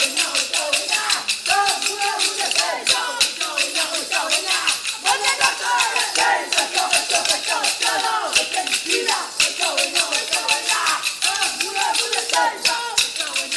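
Kolkali: many short wooden sticks clacking against each other in a fast, steady rhythm as the dancers strike in pairs, with voices singing a song over the strikes.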